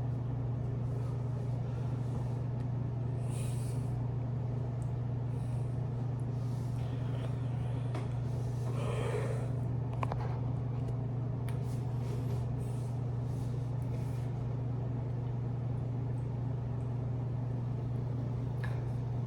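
A steady low hum, with a few faint short noises over it, the clearest about nine seconds in.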